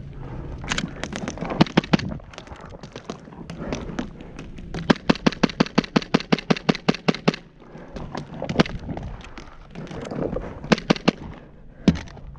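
Airsoft guns firing: a few single shots, then a rapid string of about twenty shots at roughly eight a second, then a few more scattered shots.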